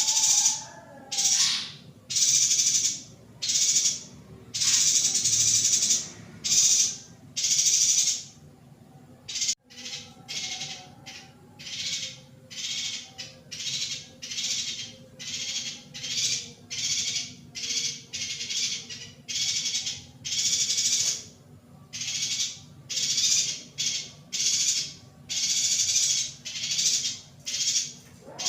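Female yuhina calling: short, high, buzzy chirps repeated about once a second. The calls break off briefly about nine seconds in, then resume somewhat softer.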